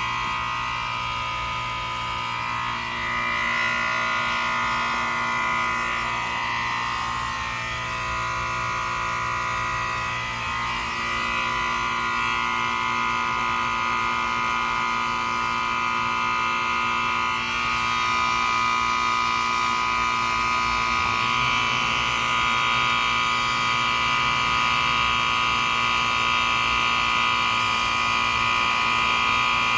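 A 1986-88 York Stellar heat pump's outdoor unit running in defrost mode: a steady, buzzing whine of several high tones that drift slightly in pitch over a low hum, growing a little louder partway through.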